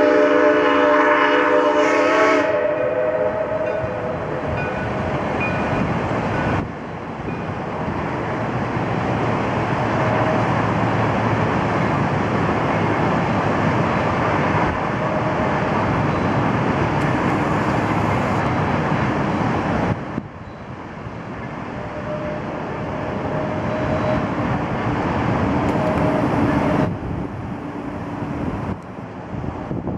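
Shay steam locomotive's whistle sounding a chord, which stops about two seconds in. It is followed by a steady rushing noise that changes abruptly in level a few times.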